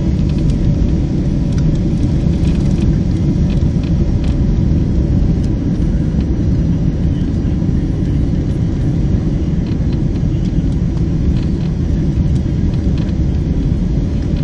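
Steady low rumble inside the cabin of a Boeing 767-300ER on final approach, from its engines and the airflow over the extended flaps.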